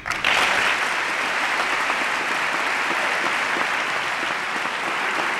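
Large audience applauding: a burst of clapping that starts suddenly and holds steady.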